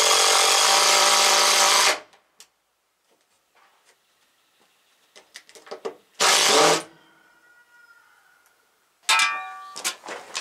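Power drill running steadily with a motor whine, cutting off about two seconds in. A few light knocks follow, then a second short burst of the drill about six seconds in, and a brief sharp sound near the end.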